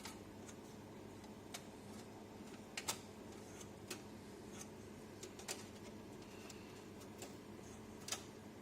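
Scattered light clicks and ticks at irregular intervals, about a dozen, over a steady low hum.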